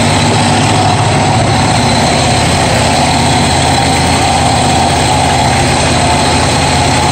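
Stucco pump's engine running steadily at a constant speed while stucco is sprayed, with an even hiss over the hum.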